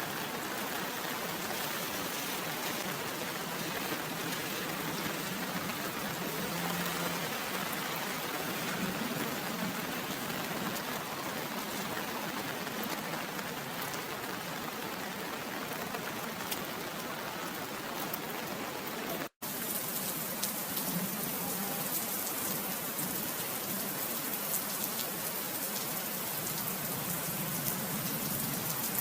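Steady rain falling, an even hiss with fine pattering drops. It drops out for an instant about two-thirds of the way through, then carries on slightly brighter, as if a second recording was joined on.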